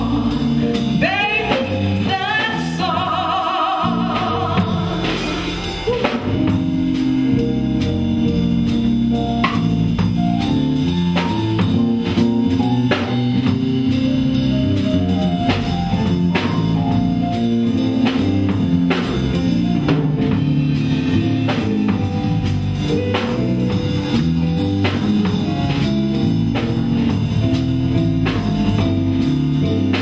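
Live band: a female singer holds long notes with wide vibrato for the first few seconds, then the band carries on without her, a drum kit keeping a steady beat under a moving bass line and guitar.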